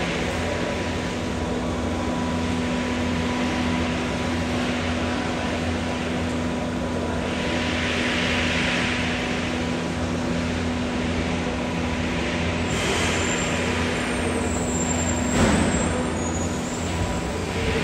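Steady hum and rumble of a running vehicle, with a brief louder knock about 15 seconds in.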